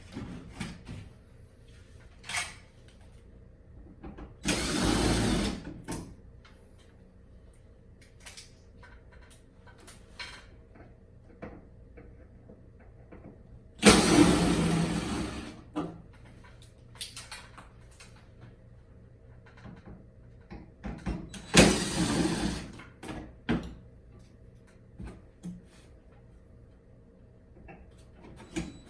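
Three short bursts of loud hissing spray, each about a second long and spaced several seconds apart, from a spray or air nozzle used in cleaning an air conditioner, with small clicks and knocks of parts being handled between them.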